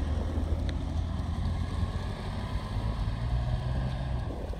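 Low, steady rumble of a car engine running close by, mixed with wind noise on the phone's microphone.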